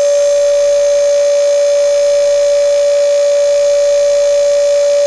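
A power inverter running off a 12-volt battery bank gives a loud, steady electrical whine. It is one constant high tone with fainter overtones above it, unchanging throughout.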